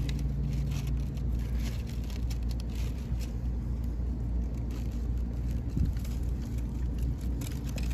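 Fingers scratching and crumbling dry sandy soil in a series of small, irregular crackles while digging out tortoise eggs by hand, over a steady low rumble.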